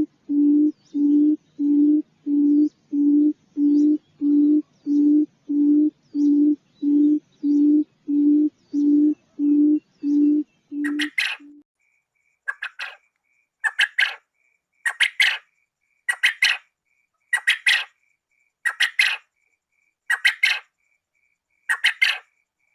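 Quail calls: a regular run of low hooting notes, under two a second, then from about halfway a series of sharper, scratchy calls roughly one a second, with a faint thin steady tone between them.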